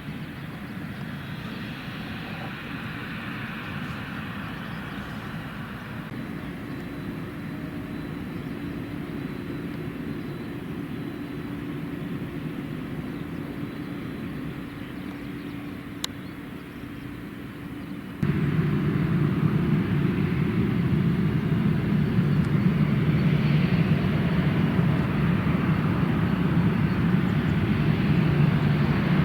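Airliner jet engines running steadily, heard across an airport with a faint steady hum. About eighteen seconds in the sound jumps abruptly to a much louder, deeper engine noise from an aircraft much closer by.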